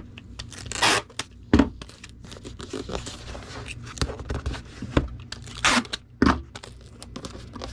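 Adhesive tape being pulled off the roll and torn while a comic book is taped into its packaging: several short, loud rasps with lighter crinkling and ticks between them.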